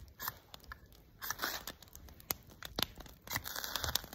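Ferro rod being scraped with a striker to throw sparks onto a fire-starting cube: two rasping scrapes, about a second in and again near the end, with a few small clicks between.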